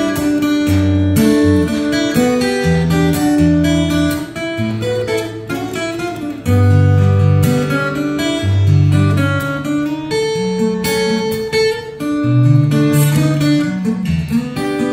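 Solo acoustic guitar played fingerstyle: a plucked melody over a moving bass line, the notes ringing on.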